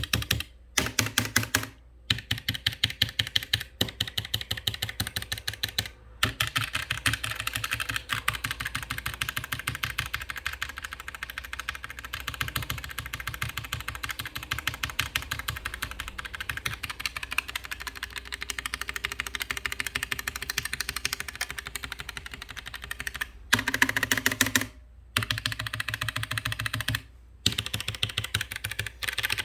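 Roccat Vulcan TKL Pro keyboard with optical switches being typed on fast, a dense stream of key clicks and key-bottoming clacks broken by a few short pauses.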